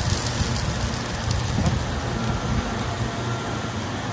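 Oil sizzling on a flat iron griddle used for pan-frying potstickers: a steady hiss, with a low hum underneath.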